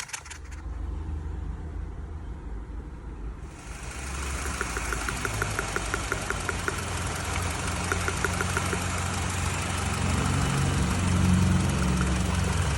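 BMW E90 engine idling steadily just after being started, a low even hum with light regular ticking over it. A hissing noise joins about three and a half seconds in.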